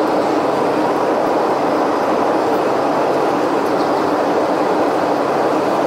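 Airliner cabin noise on the runway: the engines and airframe make a loud, steady rumble heard from inside the passenger cabin.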